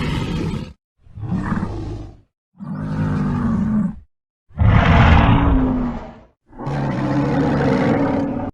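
Five short dinosaur roar sound effects, one after another with brief silences between them, each a low, rough growling call; the fourth is the loudest.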